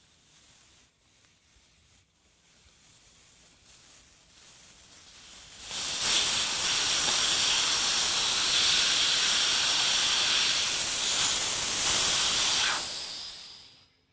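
Air hissing out of a tire's valve stem as its leaking valve core is loosened: a faint hiss builds over a few seconds, then about six seconds in becomes a loud, steady rush of escaping air that dies away near the end.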